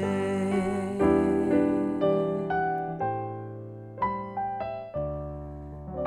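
Electric piano playing a short instrumental fill of struck chords and single notes, each fading away before the next stroke.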